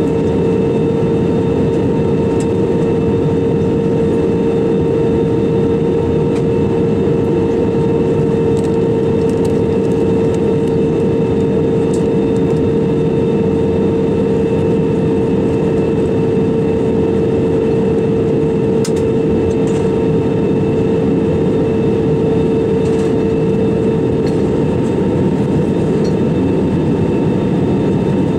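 Airbus A320-200 cabin noise in flight: a constant loud rush of airflow with a steady droning tone from the jet engines, even throughout.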